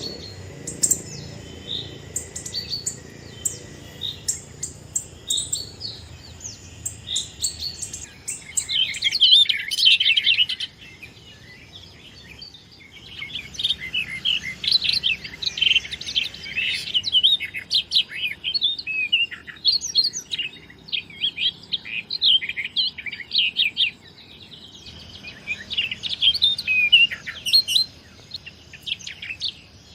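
Many small birds chirping and twittering together in a dense chorus, in bursts of several seconds with short quieter lulls between.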